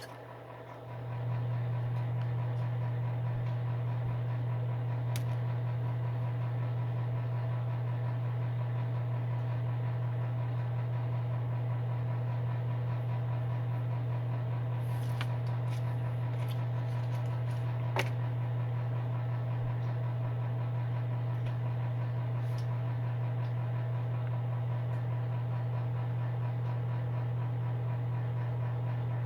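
Electric space heater's fan running with a steady low hum, which comes up about a second in and then holds level. A few faint ticks are heard here and there.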